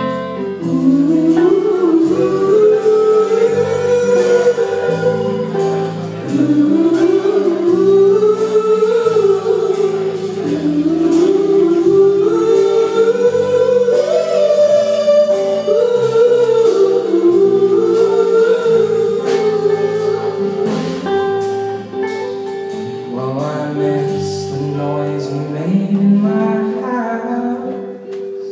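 Live band playing the slow opening of a song: a gliding melody line over sustained chords.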